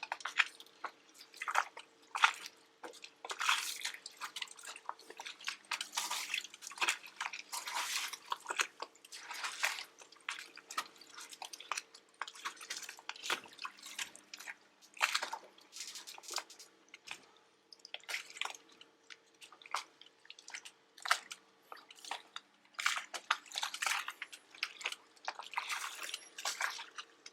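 Quick, irregular clicking and crackling from working the Yanmar diesel's hand lift pump to bleed air from the fuel system, with a faint steady hum under it. This is bleeding trapped air out of the fuel lines of a diesel that won't start.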